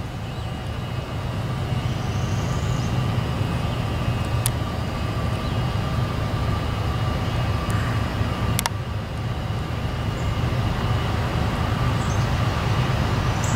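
Three CSX diesel-electric freight locomotives approaching, a steady low engine rumble slowly growing louder. A couple of sharp clicks cut through it.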